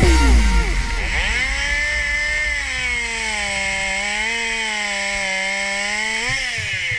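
Stihl 021 two-stroke chainsaw revving up about a second in and running at high revs, its pitch sagging and recovering as it cuts through saplings. Near the end it rises briefly in pitch, then drops away.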